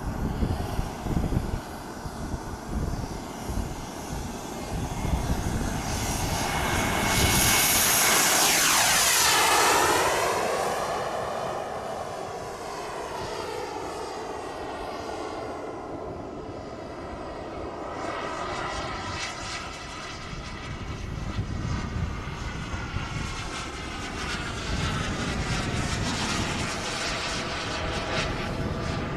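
Radio-controlled model airplane's engine in flight: a loud close pass about 6 to 10 seconds in, its whine dropping sharply in pitch as it goes by, then a steadier drone as it flies around overhead.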